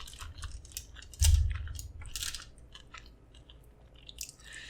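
Close-miked chewing of takeout pizza food: wet mouth clicks and soft crunches, with a louder thump about a second in.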